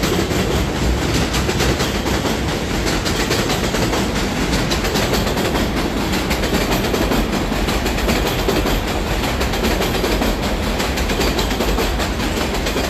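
Elevated subway train passing overhead on a steel elevated structure: a loud, steady rumble with a rapid clatter of wheels over the rail joints.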